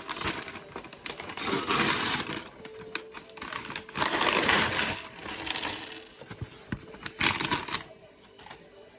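A plastic bag of Lego pieces rustling and crinkling as it is opened and emptied, with small plastic bricks clattering and clicking onto a surface. The noise comes in three louder bursts, about a second and a half in, around four seconds in, and just after seven seconds.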